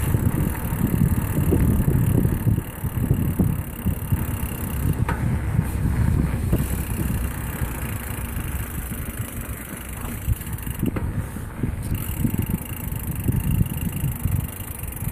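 Riding a mountain bike: wind buffeting the microphone in uneven gusts over tyre and road noise.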